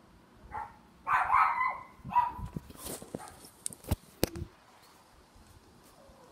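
A dog barking a few times, the loudest bark about a second in, followed by two sharp knocks near four seconds in.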